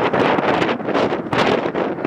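Jet engine noise of an Airbus A330-300 climbing away after takeoff, with wind buffeting the microphone in uneven gusts.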